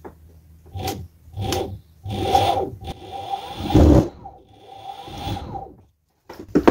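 Handling noise: a plastic twist-throttle grip and its cables rubbing and scraping on a wooden workbench in several short bursts, with a heavier thump about four seconds in. A faint steady tone comes and goes with the bursts.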